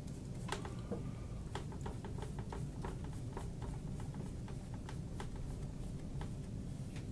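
Paintbrush dabbing paint onto a canvas: quick, irregular taps, several a second, over a steady low hum.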